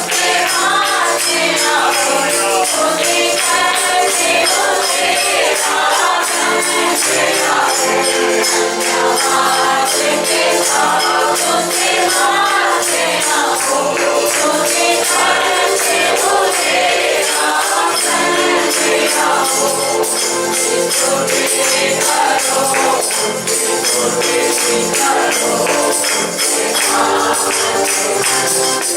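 Congregational worship song: a group of voices singing over musical accompaniment, with a tambourine shaken in a steady rhythm throughout.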